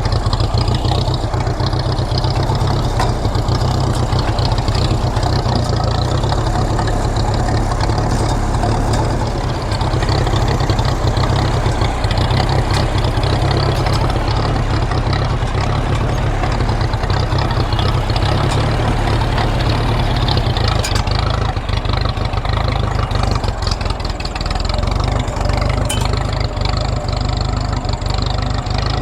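Ferguson tractor engine running steadily as the tractor drives along.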